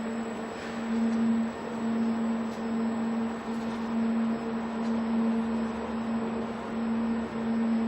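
OTC Daihen Almega EX-V6 welding robot running: a steady low hum over a hiss, its loudness swelling and easing every second or so.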